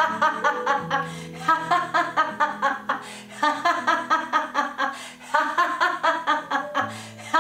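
A woman laughing heartily in deliberate laughter-yoga laughter, about five bursts of quick ha-ha-ha pulses, over background music with long held low notes.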